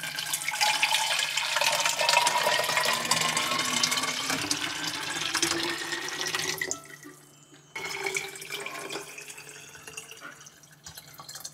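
Water pouring into an orange plastic water bottle, its pitch rising steadily as the bottle fills. The pour stops about seven seconds in, and a second pour starts a second later with its pitch rising again.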